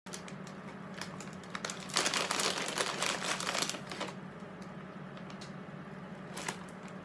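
Plastic snack bag of pretzels crinkling and rustling as a hand rummages in it, a dense crackle loudest for about two seconds, followed near the end by a single sharp crunch as a pretzel is bitten.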